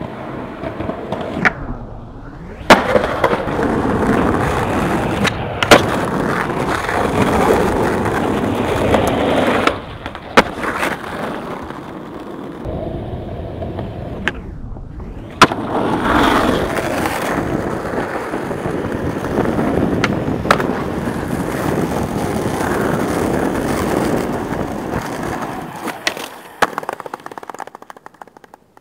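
Skateboard wheels rolling over rough concrete and asphalt, swelling and fading, with sharp clacks of the board striking the ground about half a dozen times.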